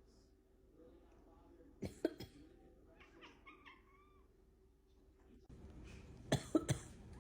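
A person coughs in quick bursts about two seconds in, and a cat answers with a short run of low-pitched mews. Near the end the person coughs again, three times in quick succession.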